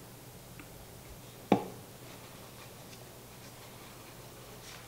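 Light handling ticks from a paper shop towel being rubbed over a small wooden box, with one sharp knock about a second and a half in, over a low steady hum.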